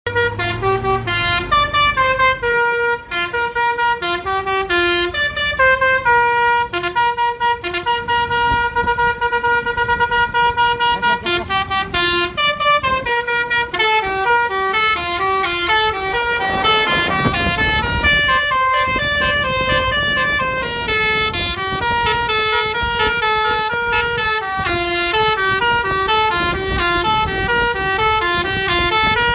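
Telolet basuri musical horn playing a fast tune of short stepped notes, the melody running on without a break. A rush of noise swells under it about halfway through.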